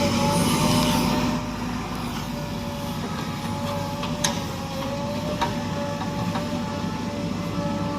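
JCB 3DX backhoe loader's diesel engine running under work with a steady high whine over the rumble; it eases off about a second in. A few sharp knocks come through in the second half.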